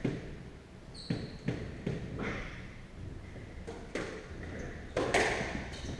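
Squash ball being played: sharp racquet strikes and ball smacks off the court walls, irregularly spaced one to two a second apart, each with a short echo, along with players' footsteps on the wooden court floor.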